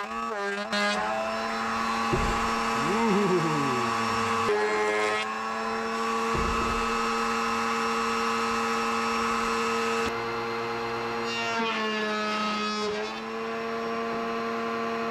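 Router in a Bosch router table running with a steady whine while hardwood trim is fed along the fence past the bit. Its pitch wavers briefly about three seconds in and again near the end.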